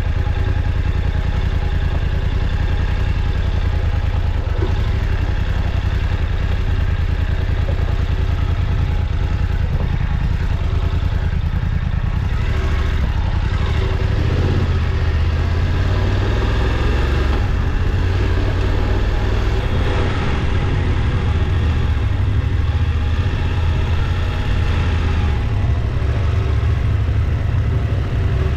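Motorcycle engine running steadily while riding along, a loud low drone with small shifts in engine note partway through.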